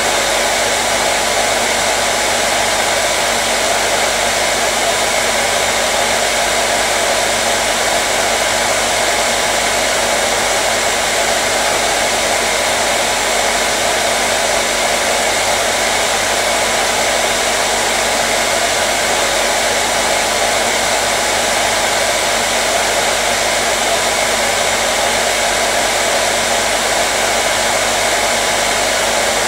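Hair dryer running continuously: a steady, unchanging whoosh of blown air with a faint motor hum underneath.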